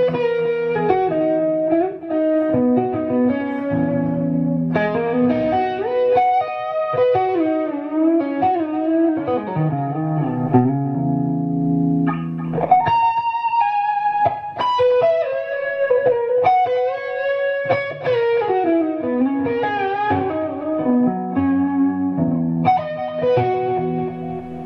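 Ibanez electric guitar improvising modal lead lines, with sliding and bending notes over long-held low notes. The playing drops briefly about halfway through, then picks up with a high held note.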